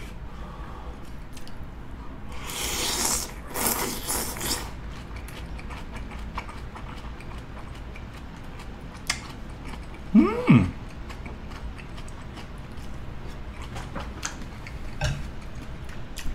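Close-up chewing of a spoonful of creamy fusilli with bacon and crisp napa cabbage: wet smacking, small mouth clicks, and a denser crunching stretch a few seconds in. About ten seconds in comes a short hummed "mm" that falls in pitch.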